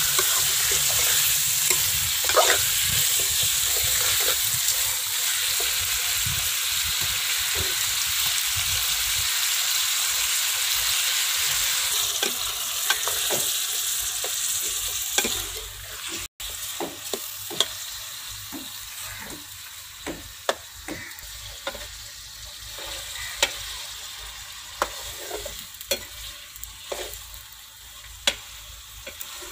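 Chicken and potato pieces sizzling in a metal pot as they are fried in spices and stirred with a metal spoon. The sizzle is loud and steady for the first half; after a sudden break about halfway it is quieter, with frequent sharp clicks of the spoon against the pot.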